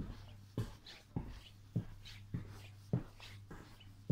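Footsteps walking along the aisle of an electric suburban train carriage, a little under two steps a second, each a short thump with a light scuff, over a steady low hum.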